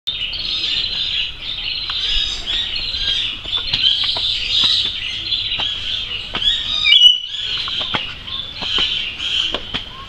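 Many birds chirping and calling at once in a dense, unbroken chorus of high chirps, with sharp clicks scattered through it. The sound cuts out for a moment about seven seconds in.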